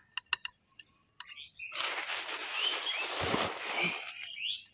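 Dry, lumpy potting soil being scooped and dropped by hand into a clay pot: a gritty rustle that starts about two seconds in, after a few light clicks of clods. Birds chirp briefly over it.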